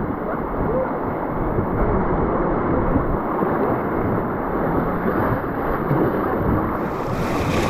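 Steady rush of river water around a raft, muffled and low, with wind on the microphone; the hiss brightens near the end.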